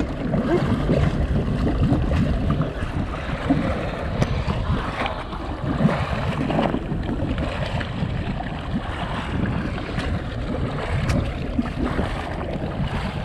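Wind buffeting the microphone over the wash of sea water around a boat, with a few small clicks and knocks.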